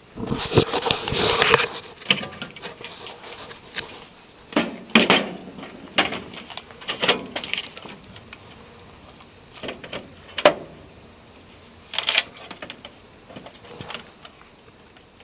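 Hands working on parts and tools: a scraping, rustling rush in the first two seconds, then scattered clicks and scrapes.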